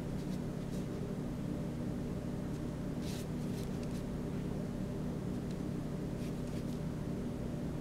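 A few short, soft swishes of a paintbrush stroking across paper, the longest about three seconds in, over a steady low hum.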